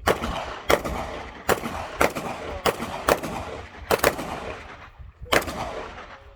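Eight suppressed .22LR pistol shots from a Walther PPK/S with a Quiet Bore suppressor, fired at an uneven pace about half a second to a second apart, each with a short echo.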